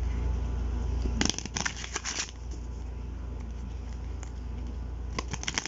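Oracle cards being shuffled by hand: a burst of quick papery card clicks about a second in, and a shorter burst near the end, over a low hum that drops away after the first second.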